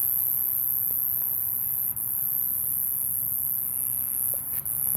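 Steady high-pitched buzzing that runs on without a break in pitch, dipping briefly about two seconds in and again near the end.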